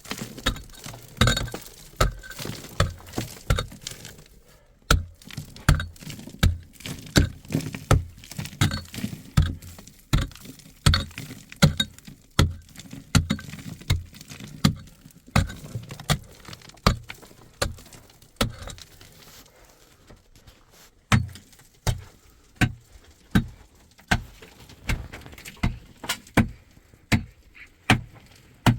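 A hand tool striking in a steady run of blows, about two a second. It pauses briefly about four seconds in and again for a second or two about two-thirds of the way through, then starts up again.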